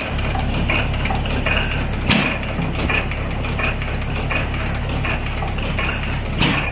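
12 hp Hercules hit-and-miss stationary engine running, firing with a louder bang about two seconds in and again near the end, and coasting between with a steady metallic clicking and clatter from its valve gear.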